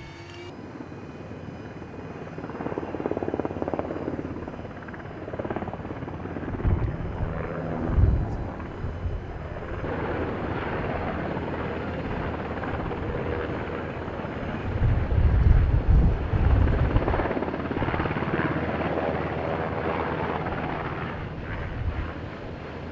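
Strong wind gusting against the microphone: low rumbling buffets over a steady rushing noise, with the heaviest gusts about seven to eight seconds in and again around fifteen to seventeen seconds.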